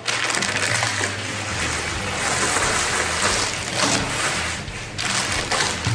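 Plastic packaging crinkling and rustling as it is handled, a dense continuous rustle with short breaks near the end.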